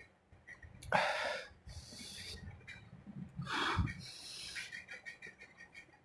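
A man breathing hard and sharply: two loud, hissing breaths, one about a second in and one past the middle. He is reacting to the burn of an extremely hot chili chip.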